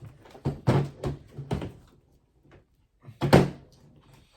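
Sharp knocks and clicks of a pistol box being handled and opened: a quick run of knocks in the first two seconds, then one louder knock about three seconds in.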